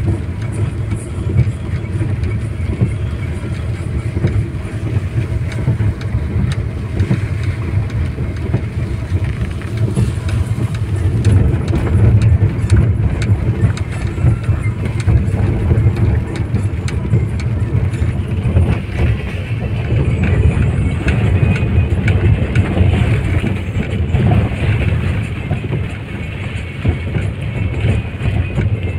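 Steady low rumble of a car's engine and tyres on a wet road, heard from inside the cabin, with scattered light ticks of rain on the windscreen.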